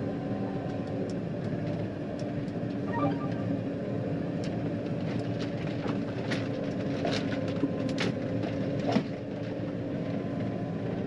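John Deere 9500 combine running with a steady mechanical drone and scattered clicks and rattles.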